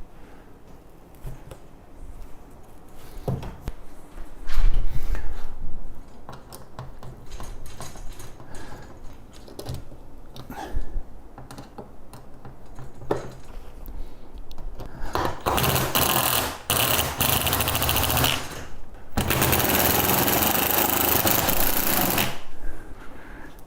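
Scattered knocks and clatter of parts being handled, then a power tool runs in two long bursts with a short pause between, the second ending shortly before the end.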